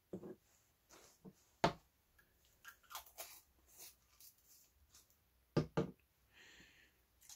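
Small hobby paint jars being handled and set down on a cutting mat: a scattering of light knocks and clicks as the pots and their lids are moved, with the sharpest knock about two seconds in and a close pair later on.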